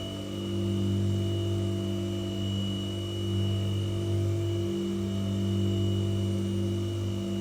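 White noise sound machine playing a steady low hum rather than a plain hiss, made of several held tones over a light hiss and swelling and easing gently.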